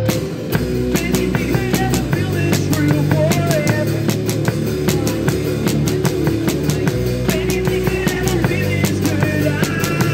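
Live rock band playing: a drum kit keeps a steady beat under bass and guitar, with a new section starting just after the beginning.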